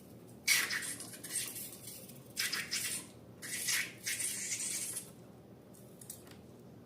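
Slime being mixed and squished, in four short bursts of wet, crackly noise, the last ending about two seconds before the end.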